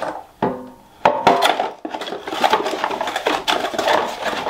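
Air fryer drawer set down on the counter with a couple of short knocks, then a cardboard packaging box being opened and handled, with rustling and scraping from about a second in.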